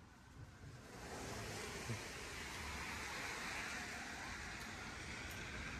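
A steady rushing noise that swells in over the first second and then holds.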